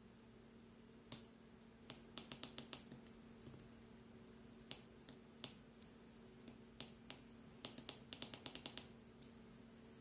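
Small tactile push buttons on a breadboard clicking under the fingers: single presses and quick runs of several clicks, irregularly spaced. A faint steady hum and a thin high whine run underneath.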